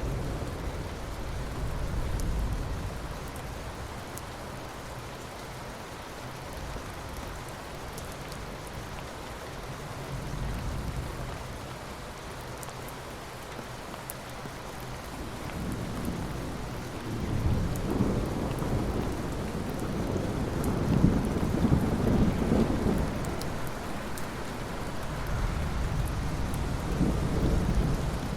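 Steady rain falling, with rolling thunder rumbling underneath; the loudest, longest rumble builds about two-thirds of the way through and another swells near the end.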